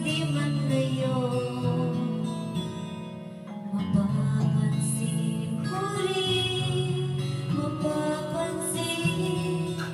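A woman singing a slow song into a microphone over backing music, holding long notes; the music dips briefly about three seconds in.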